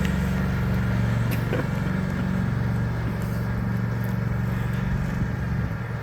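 An engine running steadily at an even speed, a constant low hum with no revving.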